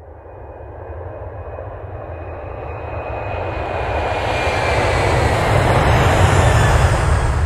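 Jet airplane sound effect: a deep rumble and rush of engine noise growing steadily louder, as of a plane approaching, with a faint high whine sliding slowly down in pitch.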